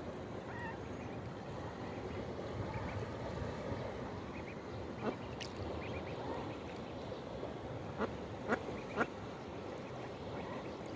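Ducklings peeping: short, sharp high calls, one about five seconds in and three in quick succession near the end, over a steady background hiss.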